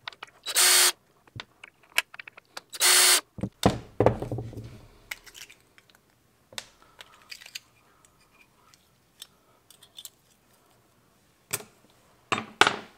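Cordless drill/driver spinning in two short bursts as it backs out small screws from an outboard reed block. A thump follows about four seconds in, then light clicks and taps of small screws and metal reed parts being handled on a wooden bench.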